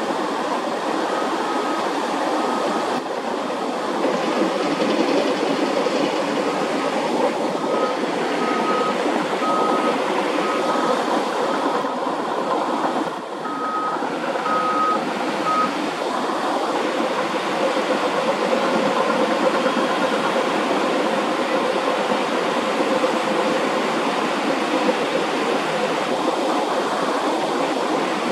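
A steady rushing noise, with a short high electronic beep repeating evenly about one and a half times a second through the first half, then stopping.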